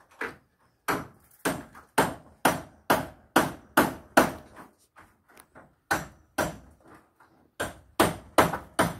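A run of sharp, evenly spaced knocks like blows of a hand tool, about two a second, each briefly ringing out. The run breaks off twice, once a little before the middle and once near the end.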